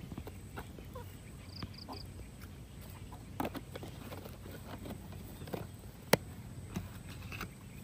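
Scattered small clicks and taps of a plastic lid and scoop being handled on a formula-milk can, with one sharp click about six seconds in. Three brief high chirps come a little before two seconds in.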